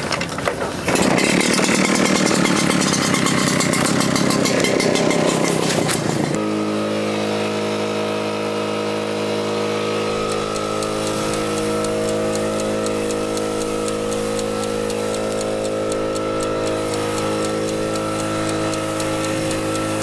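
Maruyama BL9000 backpack engine blower pull-started; the two-stroke engine catches about a second in and runs loud and rough. From about six seconds in it holds a steady high-throttle drone, blasting air.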